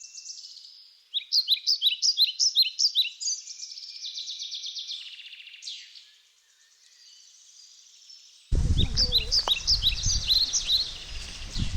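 Birds chirping and singing: a run of quick, high chirps, about three a second, then trills. About eight and a half seconds in, a loud, steady outdoor background noise cuts in suddenly under the birdsong.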